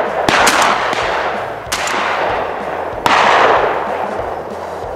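Several shotgun shots fired at passing ducks. A quick cluster of shots comes at the start, another about a second and a half in, and a loud one about three seconds in. Each shot is followed by a long rolling echo that fades away.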